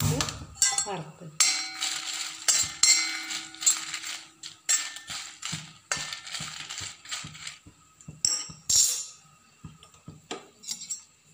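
Dried red chillies being stirred as they roast in a dry metal kadai: a utensil scraping and clinking against the pan in irregular short strokes, with several bursts of scraping.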